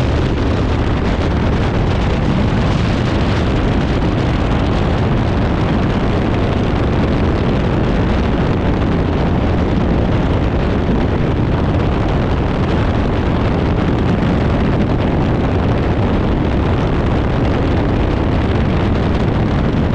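Steady, loud wind buffeting the microphone of a light aircraft in flight: an even rushing noise, heaviest in the low end.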